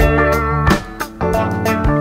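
Instrumental break of a country song: a guitar lead over bass and a steady drum beat.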